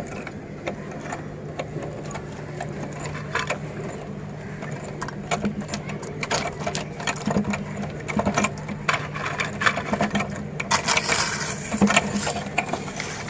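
Electric meat grinder running with a steady hum as biscuits crunch and crackle through it. The crunching becomes denser and louder about ten seconds in.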